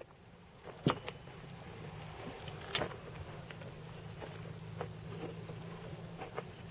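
Scattered clinks and knocks of forks and plates at a wooden picnic table as two people sit down and eat, the sharpest about a second in and near three seconds, over a steady low hum.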